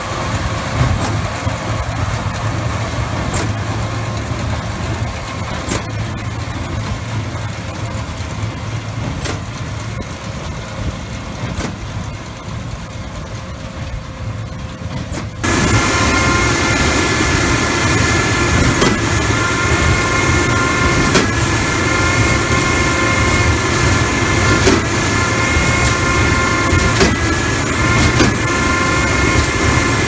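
Tractor and large square baler running steadily while baling hay, a continuous low machinery hum. About halfway it changes abruptly to a louder, closer sound of the same machinery with a steady high whine over it.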